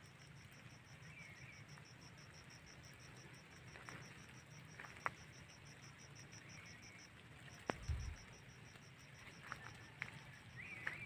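An insect calling in the scrub: a faint, high-pitched pulsed chirp repeating about six times a second, pausing briefly about seven seconds in. It has a few light clicks and a low thump near the end.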